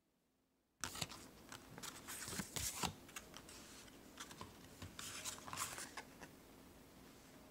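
Paper photo prints and booklets rustling and scraping against each other as a hand shuffles through them. The sound starts suddenly about a second in, with the strongest scrapes in the next two seconds and again a little past halfway.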